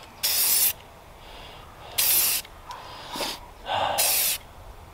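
Aerosol spray paint can sprayed in three short bursts, just under two seconds apart.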